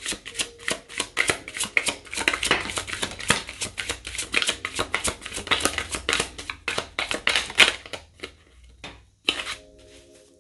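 A deck of tarot cards being shuffled by hand, a fast run of crisp card clicks and riffling for about eight seconds, then a pause and one short rustle near the end.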